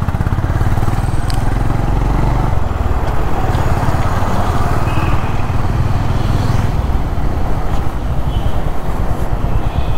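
Honda CB350's single-cylinder engine running steadily while the motorcycle is ridden, with road noise.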